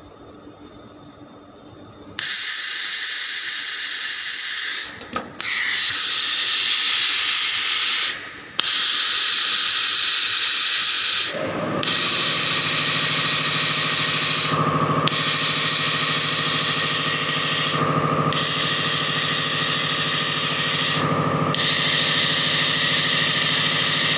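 Battery-pack laser welding machine at work: a loud, steady hiss starts about two seconds in and breaks briefly about every three seconds in a regular cycle. About halfway through, a low hum joins it and swells at each break.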